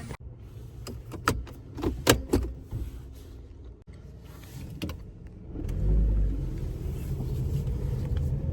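A few sharp clicks and knocks in the first couple of seconds, then a car engine starts about five and a half seconds in and keeps running with a steady low rumble.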